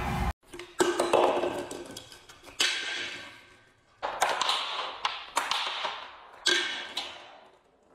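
Small hard beads flicked by hand onto a board floor, each landing with a sharp tap and a clatter that fades over about a second. There are five or six such strikes, a couple of them coming in quick pairs.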